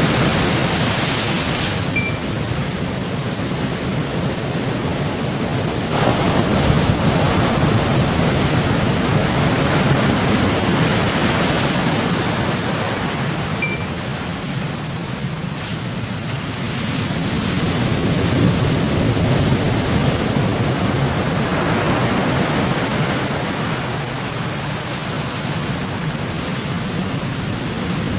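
Big waves of a rough sea washing against a bagan fishing boat: a continuous rushing noise that swells in slow surges, loudest about six seconds in and again in the second half.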